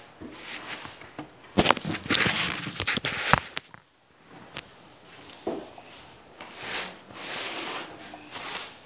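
Stiff-bristled broom sweeping across a wooden surface close by: scratchy swishing strokes, the longest about two seconds in and again near the end, mixed with a few sharp knocks and bumps.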